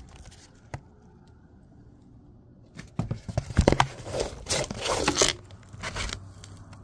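Handling noise: quiet at first with a single click, then from about three seconds in a couple of seconds of rustling and scraping as the phone and the cardboard viewer are moved about.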